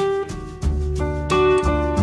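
Instrumental background music: a soft jazz-pop song intro of piano and guitar chords over a bass line, without singing.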